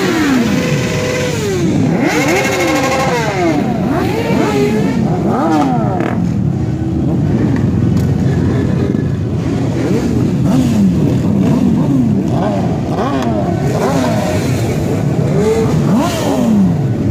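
Several sport motorcycle engines revved over and over, their quick throttle blips rising and falling in pitch and overlapping one another above a steady idle rumble.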